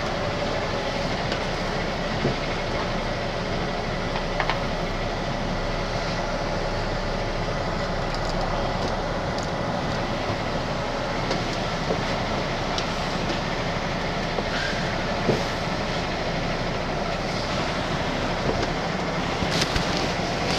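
A heavy goods vehicle's diesel engine running, heard from inside the cab as a steady rumble, with a few light clicks and rattles.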